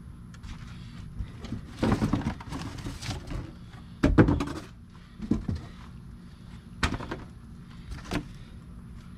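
Cardboard shipping box being opened by hand: flaps scraping and folding back, with several thumps and short knocks. The loudest is about four seconds in.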